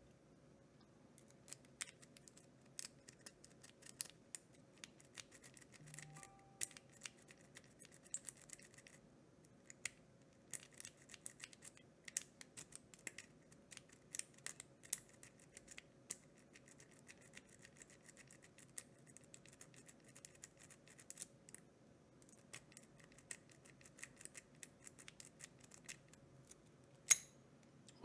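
Steel lock-pick rake scraping in and out of a Master Lock No. 3 laminated-steel pin-tumbler padlock, making a long run of quick, irregular light metallic clicks and scratches as the pins are raked. Near the end a single louder click sounds as the lock gives and opens.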